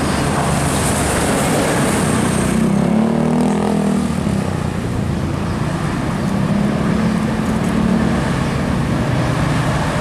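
Road traffic passing close by: a tour bus's engine as it comes past, then a line of cars, their engines and tyres. The engine hum swells twice, about three seconds in and again around seven seconds.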